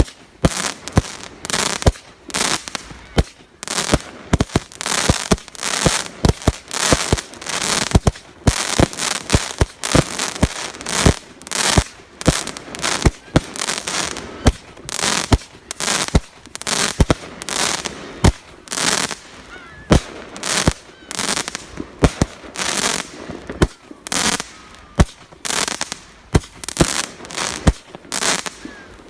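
Fireworks display going off in a rapid, nearly continuous barrage of sharp bangs, several a second, with bursts of crackling between them.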